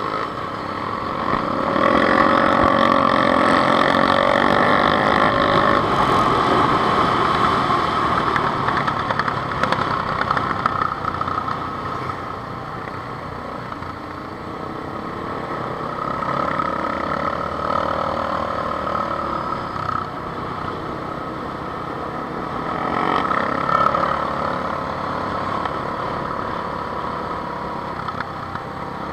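Honda CBR600 F4i inline-four sport bike engine running under way at low speed, its revs rising and falling, with the engines of the quad bikes and motorcycles riding close alongside. Louder from about two seconds in to about ten seconds, and again briefly near the end.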